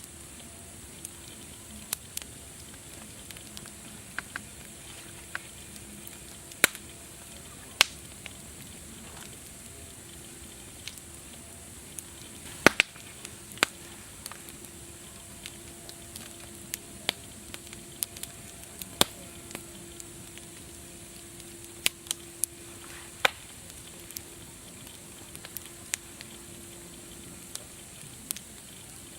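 Wood fire crackling: sharp, irregular pops and snaps over a steady hiss.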